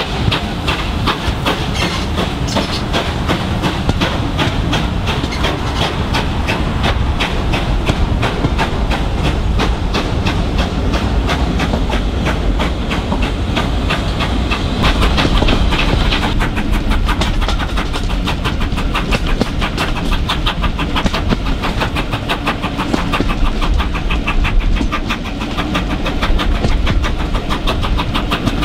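Steam locomotive hauling a train, its exhaust beats coming in a fast, even rhythm over the steady rumble and clatter of the carriage wheels on the rails, heard from an open carriage window.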